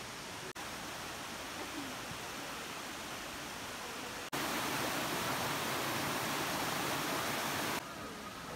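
Steady rushing of falling water from waterfalls. It breaks off for an instant about half a second in, grows clearly louder from about four seconds in, and drops back abruptly near the end.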